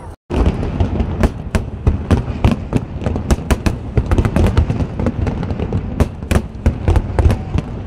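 Aerial fireworks bursting in a rapid, continuous barrage of sharp cracks and booms, several a second. The barrage cuts in abruptly just after the start.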